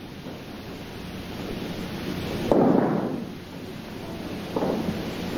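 Thuds of bodies hitting the mat as aikido partners take breakfalls. A heavy thud comes about halfway through and a lighter one near the end, each with a short echoing decay.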